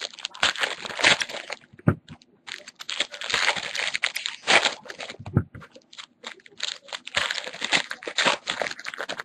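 Foil trading-card pack wrappers crinkling and crackling as they are handled and torn open, in several bursts.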